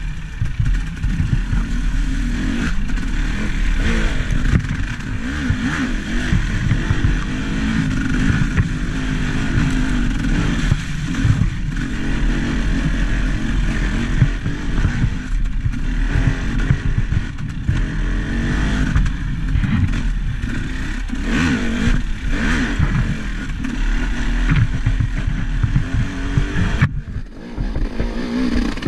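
Vehicle engine running under changing load, its pitch wavering up and down over a constant low rumble, with frequent knocks and rattles. It eases off briefly near the end.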